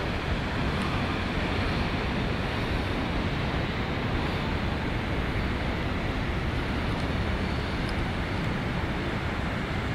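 Steady rush of ocean surf breaking on the rocks, mixed with wind buffeting the microphone.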